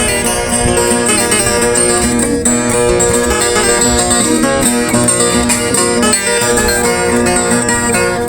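Brazilian viola caipira played instrumentally, a steady run of quickly picked notes on its paired steel strings.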